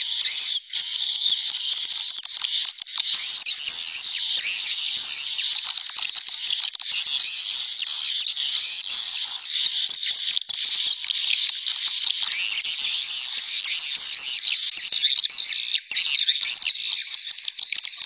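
Swiftlet lure recording: a loud, dense, continuous chorus of swiftlets' high twittering chirps, with a steady thin high tone underneath that drops out now and then. It is the kind of call played in swiftlet nest houses to draw the birds in to roost.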